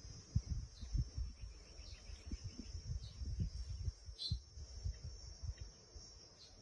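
Outdoor field ambience: a steady high insect buzz with short, falling bird chirps, over an irregular low rumble.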